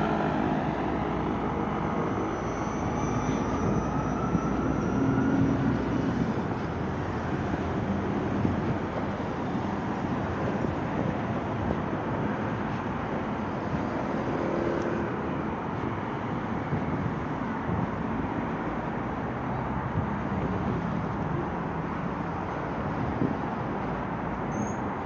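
Steady city road traffic: a continuous rush of passing cars and engines.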